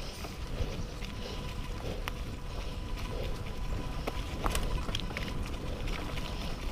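Mountain bike rolling over a rough trail: a steady low rumble from the tyres, with scattered clicks and rattles from the bike.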